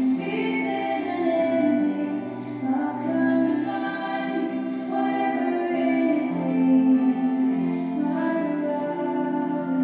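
A song with a woman's singing voice holding long notes over soft instrumental accompaniment.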